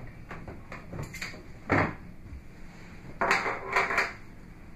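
Knocks and rattles of a wooden cabinet and the gear being taken from it: a sharp knock about two seconds in, then a cluster of several louder clattering knocks near the end.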